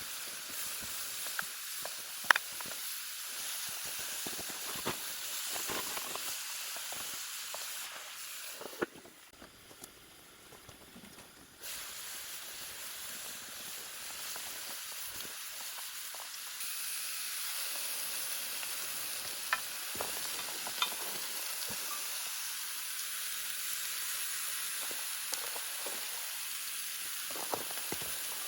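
Food sizzling as it fries, a steady hiss with scattered small pops and clicks. It drops away for a couple of seconds about nine seconds in.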